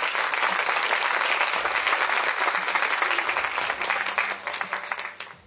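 Audience applauding in a hall, steady dense clapping that dies away near the end.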